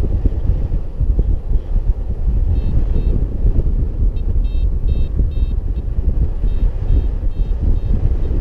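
Airflow buffeting the microphone of a paraglider in flight, a loud low rumble. Over it, a variometer's high beeps start a few seconds in and settle at about two a second, the vario's signal that the glider is climbing in lift.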